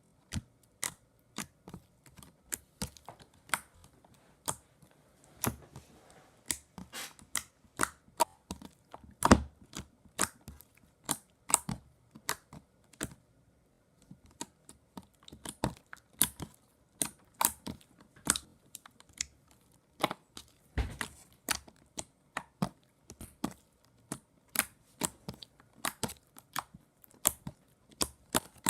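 Slime being squished and poked by hand, giving sharp, irregular popping clicks a few times a second, with a short lull about halfway through.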